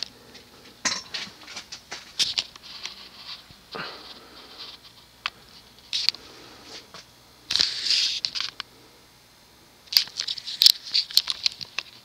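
1989 Hunter Custom Home 42-inch ceiling fan spinning up on low speed, its motor a faint steady hum. Irregular clusters of light clicks and rustles sit over it, the loudest near the end.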